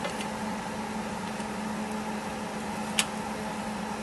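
Metal tongs clicking against the grill grate while picking up pieces of fish, with one sharp click about three seconds in, over a steady appliance hum.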